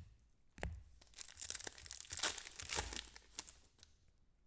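Trading card pack wrapper torn open and crinkled: a couple of light clicks, then about two seconds of crackling tearing.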